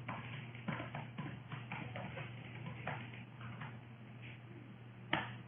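Keys being typed on a computer keyboard: irregular light clicks, with one louder key click near the end, over a steady low hum.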